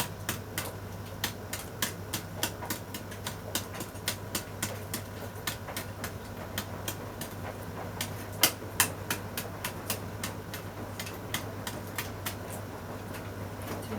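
Irregular sharp clicks and cracks, a few a second, over a steady low hum, with one louder crack about eight and a half seconds in.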